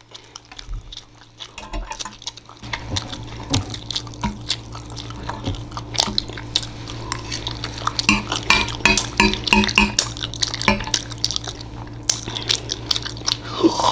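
Metal fork clinking and scraping against a glass baking dish while scooping mac and cheese, mixed with wet chewing and lip-smacking of mouthfuls.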